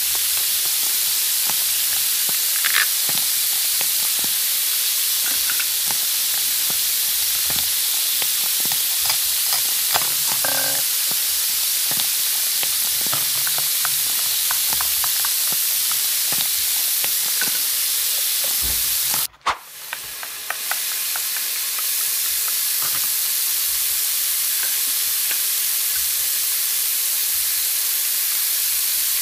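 Steady hiss throughout, with faint clicks and taps of plastic toy pieces being set down on a table. About two-thirds of the way through the sound cuts out for a moment, then the hiss fades back in.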